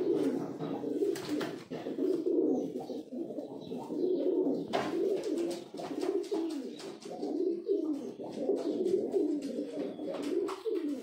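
Male Rampuri pigeons cooing continuously, several low rising-and-falling coos overlapping one another, with a few short sharp clicks among them.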